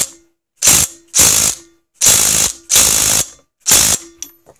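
DeWalt impact driver hammering on a 22 mm snowmobile flywheel nut in about six short bursts. The nut does not break loose.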